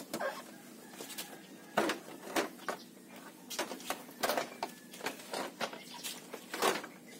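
Plastic fairing panels of a Honda Wave 125 motorcycle being worked loose by hand: irregular clicks and knocks of the panels and their clips as they are pulled and pried, a few of them sharper than the rest.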